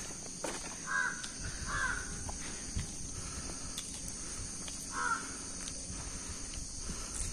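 A crow cawing three times in short calls, over a steady high-pitched drone of insects in the forest.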